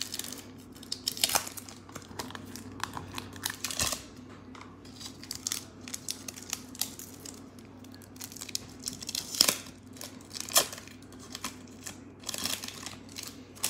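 A 1992-93 Stadium Club basketball card pack's wrapper torn open and crinkled by hand, in irregular crackles. The sharpest crackles come about nine and a half and ten and a half seconds in.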